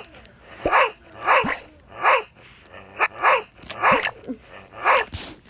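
Barking: a string of short barks, about two a second, each falling in pitch.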